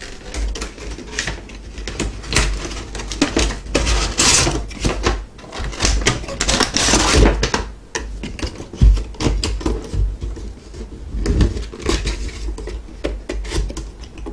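Plastic packaging and a cardboard figure box being handled: a run of light clicks, taps and crinkles, with longer rustles about four and seven seconds in.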